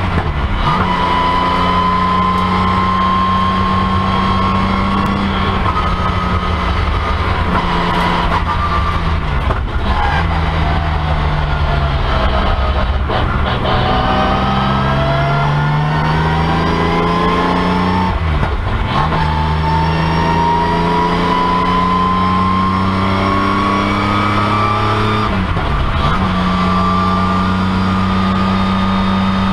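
BMW M3 CSL racecar's straight-six engine heard from inside the stripped cabin while driven on track. The note climbs slowly through each gear and drops sharply at the shifts and lifts, about four times.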